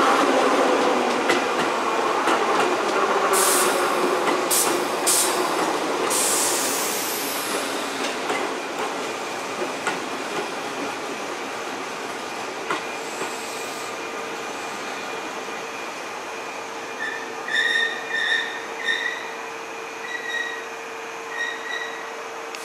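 Keihan 2400 series electric train slowing into a station: running and wheel noise with a whine falling in pitch, several short hisses of air early on, then a steady hum once it has nearly stopped. Near the end come several groups of short high electronic beeps.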